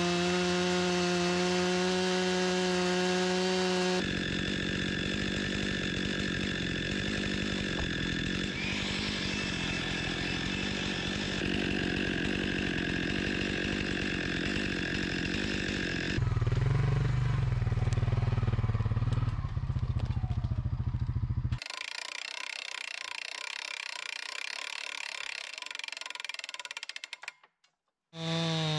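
Two-stroke chainsaw running steadily at high revs on an Alaskan chainsaw mill, ripping boards from a large white pine log. The sound changes abruptly several times and cuts out briefly near the end.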